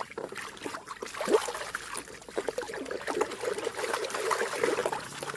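Water trickling and splashing with small irregular clicks and short squeaks as a mud-covered toy is rinsed and rubbed clean.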